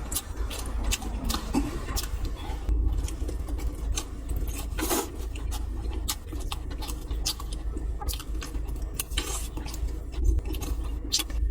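Close-miked eating at a meal of steamed buns and pork: a steady run of small, irregular clicks and taps of utensils against a dish.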